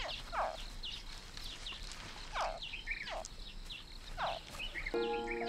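Crocodile hatchling calling: short chirps about once a second, with fainter high chirps between them. Music comes in near the end.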